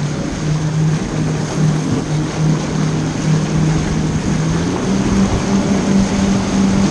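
Jet ski engine running steadily at speed while towing a biscuit tube, over the rushing of its jet wash and spray. Its note rises a step a little under five seconds in.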